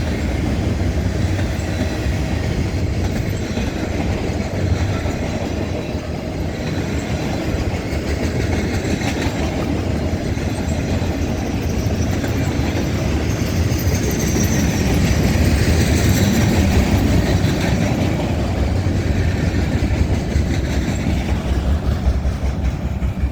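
CSX freight train cars rolling past on the rails: a steady heavy rumble with the clickety-clack of wheels over rail joints, and a faint high squeal from the wheels about halfway through.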